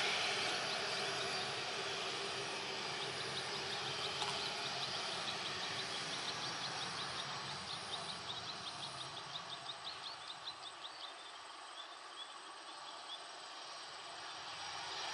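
Distant jet engines of a Boeing 737 cargo jet running at low thrust as it taxis and turns on the runway: a steady rumbling hiss that fades about ten seconds in and swells again near the end. A rapid run of high chirps sounds over it through the middle.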